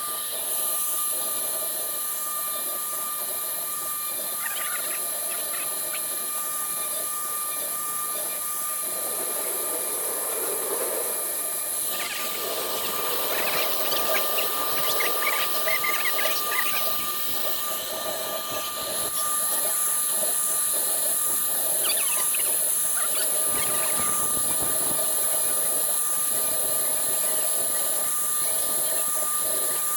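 Woodworking CNC router running, its spindle giving a steady high-pitched whine while the bit engraves MDF. The cutting noise turns rougher and a little louder for several seconds about twelve seconds in.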